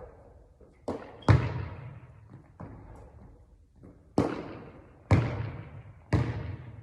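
A basketball bouncing on a hard court floor: five sharp thuds at uneven intervals, two close together about a second in and three more later on, each trailing off with an echo.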